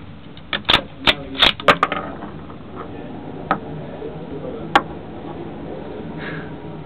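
Sharp handling clicks and knocks at a shooting bench: a quick run of about six in the first two seconds, then two more single clicks, the last as a spent brass cartridge case is set upright on the bench.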